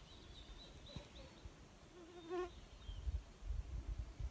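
A flying insect buzzing briefly past the microphone just past the middle, its pitch wavering, over faint high chirps and low wind rumble.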